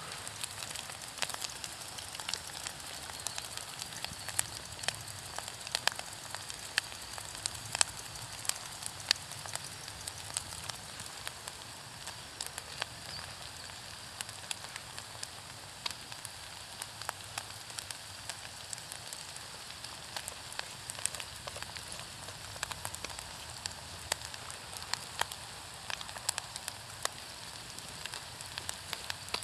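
Food frying in a pan over a wood fire in a small camp stove: a steady sizzle broken by frequent sharp crackles and pops.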